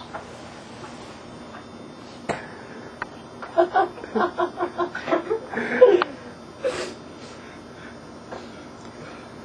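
A person laughing: a run of short pitched 'ha' pulses, about four a second, for roughly three seconds in the middle, with a sharp click before it and a brief breathy burst after.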